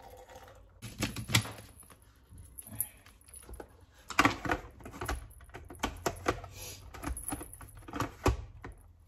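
Irregular hard-plastic clicks and knocks as a personal smoothie-maker bottle has its blade lid screwed on and is turned over and fitted onto the motor base. The blender motor is not running.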